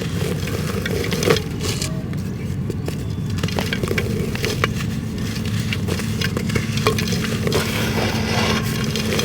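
Clumps of dirt being crumbled and crushed by hand: a dense, irregular run of small crunches and crackles over a steady low background noise.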